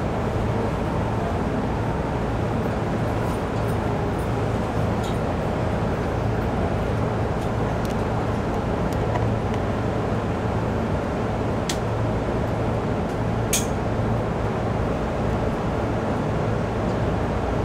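A JR East Nambu Line electric commuter train running between stations, heard from on board: a steady rumble with a low hum. There are two sharp clicks, about twelve seconds in and again shortly after.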